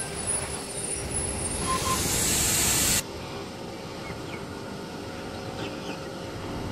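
Double-deck electric suburban train running along the platform, a dense rush of wheel and running noise with a loud hiss that builds and cuts off abruptly about three seconds in. After that, the steadier, quieter noise of the train moving away.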